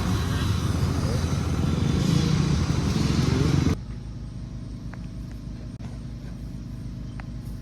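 Off-road engine running loud with its pitch wavering for about four seconds, then cutting off suddenly to a quieter, steady low engine rumble with a few faint clicks.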